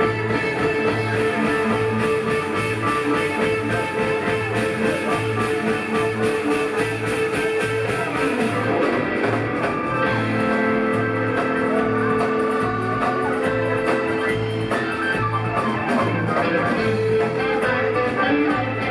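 Live rock band playing an instrumental jam: electric guitar over bass and drums, with a regular pulse in the low end. The held notes shift about halfway through.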